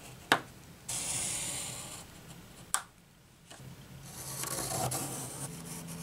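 Pencil drawn along a ruler across thin cereal-box cardboard, scratching in two long strokes. Two sharp taps, about a third of a second in and near the middle.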